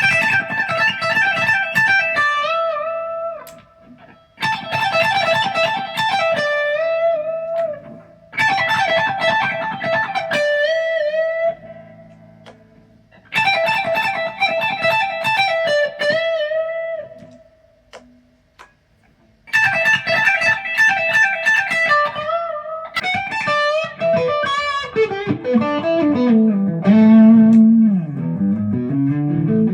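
ESP LTD EC-256 electric guitar playing a lead: five quick runs of high notes, each ending on a held note with vibrato, separated by short pauses. Near the end it moves into a lower phrase with string bends.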